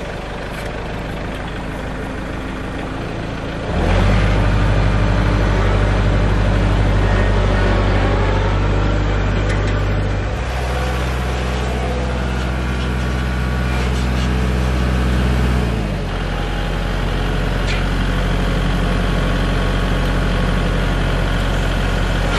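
Kubota tractor's diesel engine running steadily under load, driving a J Bar rotary mower. The engine comes up louder about four seconds in and eases back a little near sixteen seconds.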